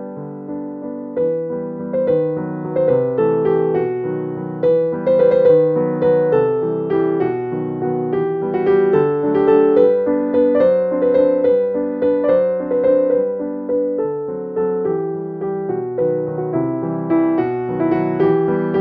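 Background piano music, a flowing melody of struck notes.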